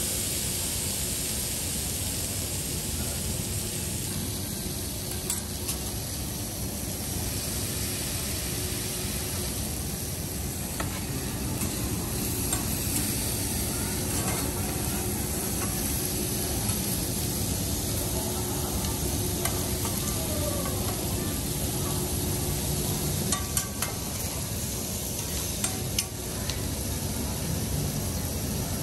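Seafood and vegetables sizzling on a hot steel teppanyaki griddle, the sizzle brightest at the start as butter melts over lobster and shrimp. Now and then there is a sharp clack or scrape of the chef's metal spatulas on the flat-top.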